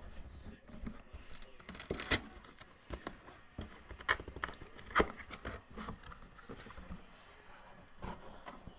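Handling noise from a cardboard helmet box and its packaging: scattered light rustles and taps, with sharper knocks about two, four and five seconds in.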